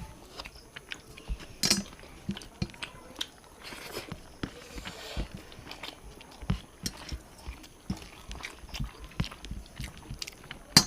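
Close-miked eating sounds: people chewing and biting through a meal of fish curry and fried greens, with irregular soft clicks and smacks.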